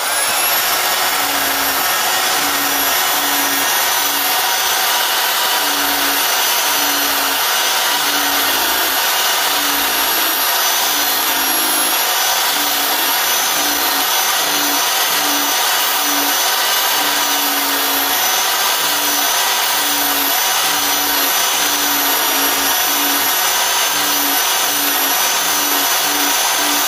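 Evolution 400 W power file, an electric narrow-belt file sander, spinning up and then running with a steady high whine while its belt sands hardwood, taking wood off fast.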